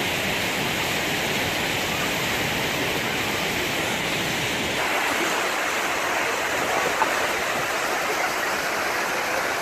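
Waterfall water rushing steadily, a loud even wash of noise. About halfway through its deeper rumble drops away abruptly, leaving a thinner, brighter hiss.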